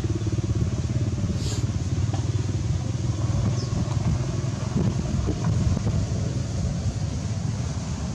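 Steady low rumble of an engine running close by, with no break or change.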